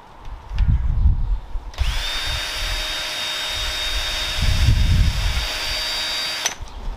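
Cordless drill drilling pilot holes into a rope-wrapped cardboard scratching-post tube. The motor spins up with a quick rising whine about two seconds in, runs at a steady high pitch, and stops abruptly near the end. Low rumbling knocks come before it starts and again partway through.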